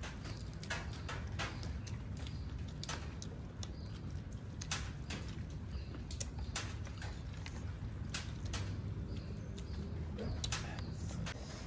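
Close-up eating sounds as several people chew and suck on chicken bones with their hands: irregular wet clicks and smacks of mouths and fingers, over a steady low hum.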